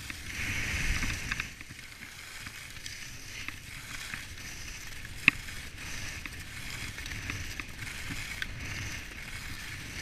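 Skis sliding and carving over groomed snow on a downhill run, a steady scraping hiss. It swells louder in the first second or so, with a single sharp click about five seconds in.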